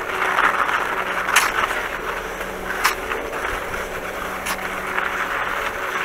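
Skis sliding over wet snow with a steady hiss, three sharp clicks about a second and a half apart, and a faint low hum underneath.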